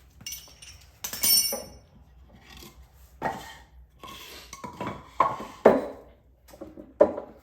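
Metal hand tools and parts clinking and clanking irregularly as they are handled and set down, some strikes briefly ringing, with a few scrapes between.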